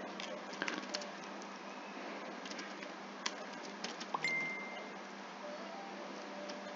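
Scattered light clicks of a computer keyboard being typed on, over a steady background hum and hiss. About four seconds in, a short steady high tone sounds for under a second.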